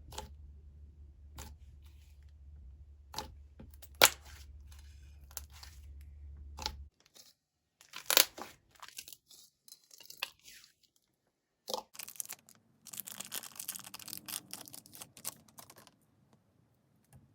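Fluffy butter slime handled by hand: scattered sharp bubble pops, then a denser run of sticky tearing crackles toward the end.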